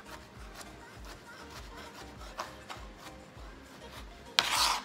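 Knife slicing fried chicken breast on a metal tray, with a few light clicks of the blade on the tray and one short, loud scrape near the end. Background music with a steady low beat runs underneath.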